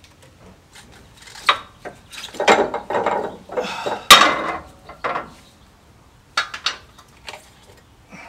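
Jeep front coil spring and rubber isolator being worked out of the spring perch: metal rattling and clanking, loudest in a sharp clank about four seconds in, with a few lighter clicks near the end.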